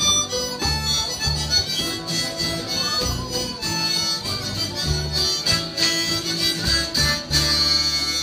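Acoustic folk band playing a tune: plucked double bass notes under a guitar and a lead melody instrument.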